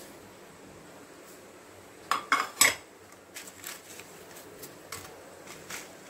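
A small ceramic plate clinking and knocking against the rim of a metal kadai as whole spices are tipped off it into the pan: three sharp clinks about two seconds in, then a run of fainter taps.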